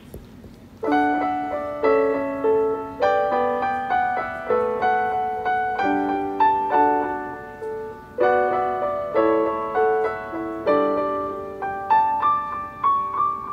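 Piano (keyboard) playing the introduction to the song, before the singing starts: notes and chords struck about twice a second and left to ring, beginning about a second in.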